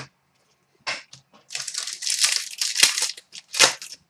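Foil wrapper of a trading-card pack crinkling as it is handled and torn open: several short bursts, with a longer stretch of crinkling in the middle.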